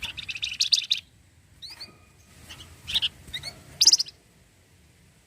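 Javan fulvetta (flamboyan, wergan jawa) singing: a rapid chattering trill in the first second, then a few short high calls, the loudest about four seconds in.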